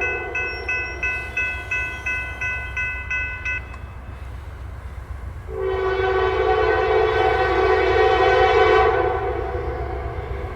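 Locomotive bell ringing at about three strokes a second, stopping after three and a half seconds; then, about five and a half seconds in, a Norfolk Southern diesel locomotive's air horn sounds one loud chord for about three and a half seconds and fades away. A low diesel rumble runs underneath.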